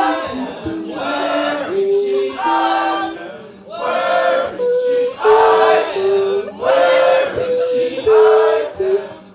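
A group of voices singing together in short phrases of held notes, with brief breaks between the phrases.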